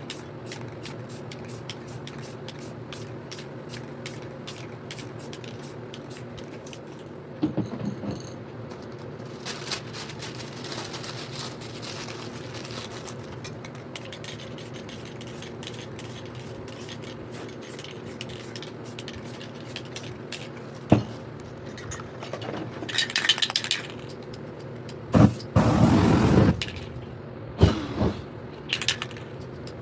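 Aerosol spray paint can hissing in several short bursts in the last third, the longest about a second and a half, over a steady low hum. Faint clicking and scraping come before the spraying.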